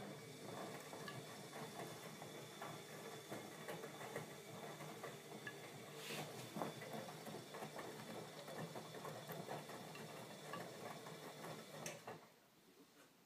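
Bosch Maxx 40 WFC2445 front-loading washing machine running a wash turn: a steady motor hum under a dense, irregular patter of laundry tumbling in the turning drum, stopping suddenly about twelve seconds in.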